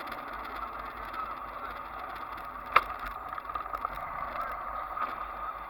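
Ride noise from a moving motorcycle: engine and wind blended into a steady hiss, with one sharp click about three seconds in.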